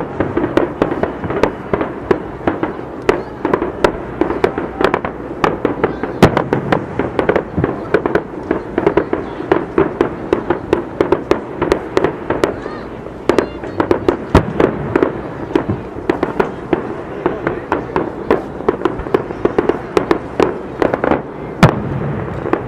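Fireworks display: a dense barrage of aerial shells bursting, with rapid, irregular bangs several times a second.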